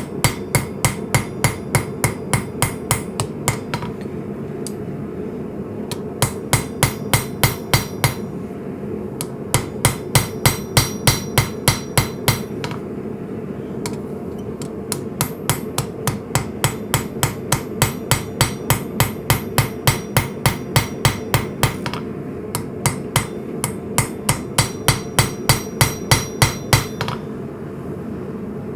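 Hammer blows on hot coil-spring steel over an anvil, forging the bolster of an integral hunting knife into an octagonal shape. The blows come in quick runs of about three to four a second, each with a metallic ring, broken by pauses of a second or two. A steady low rush runs underneath.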